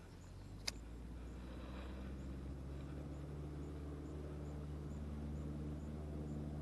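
A motor engine's low, steady hum, slowly growing louder, with one sharp click a little under a second in.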